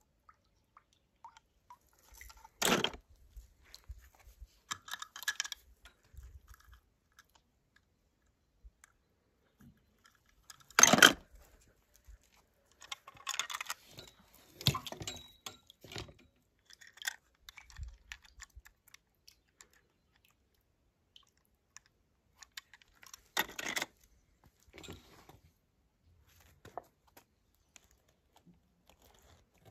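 Toy cars being handled: scattered small clicks and rattles, with three sharp knocks about three, eleven and twenty-three seconds in.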